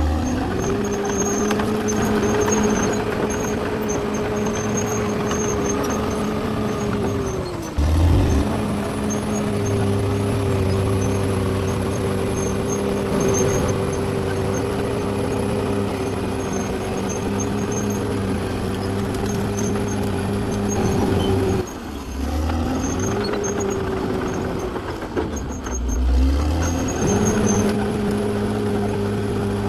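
Radio-controlled model D6R XL bulldozer running with a steady mechanical whine. The pitch sags and the sound briefly drops out about 8 seconds in, near 22 seconds and again around 25 seconds, then comes back up to the same pitch.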